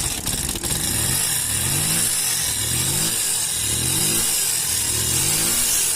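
Bajaj Discover motorcycle's single-cylinder engine running, its pitch rising in repeated surges about once a second as the throttle is blipped. It has just been reassembled after an oil-pump cleaning and is being run with the oil-check bolt out to see whether oil circulates.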